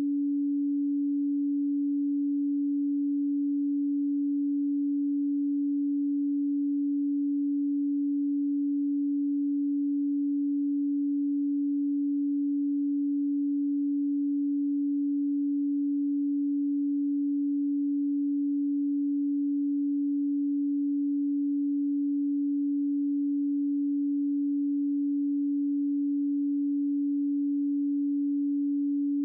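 A pure electronic sine tone at 285 Hz, held perfectly steady.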